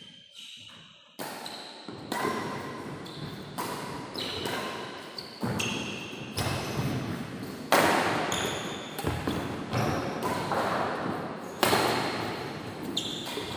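Badminton rally: a shuttlecock struck back and forth with racquets, a string of sharp hits every second or so that ring on in a large echoing hall, with short squeaks of shoes on the court.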